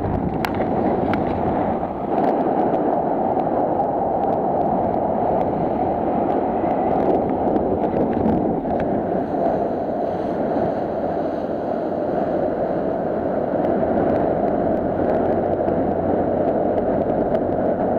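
Motor yacht under way: water rushing and splashing steadily along the hull and wake, with a faint low engine hum underneath.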